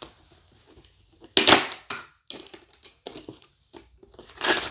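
Cardboard rustling and scraping as a boxed Funko Pop figure is pulled out of a packed mystery box, with a loud scrape about a second and a half in, scattered small clicks and rustles, and another scrape near the end.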